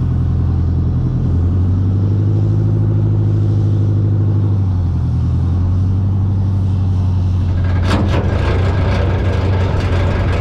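An engine running steadily under way, its note stepping down a little about a second in. From about eight seconds in, a rushing, crackling noise joins it.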